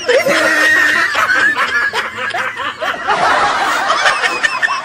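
People laughing hard, with a drawn-out high-pitched squeal of laughter about half a second in.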